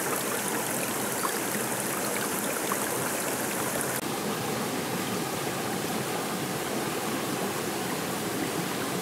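Steady rushing of a rocky mountain stream flowing over stones.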